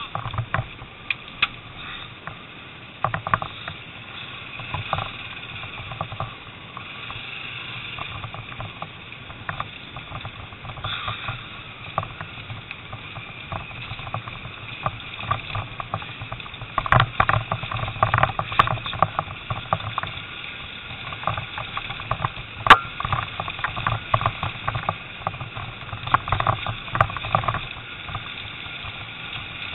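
Off-road trail motorcycle riding along a rough dirt lane: the engine runs steadily under frequent irregular knocks and rattles as the bike and camera jolt over ruts, busiest in the second half with one sharp knock about two-thirds of the way in.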